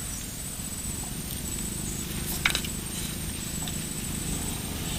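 Wind buffeting the microphone as a steady low rumble, with a thin high tone that comes and goes and one sharp click about halfway through.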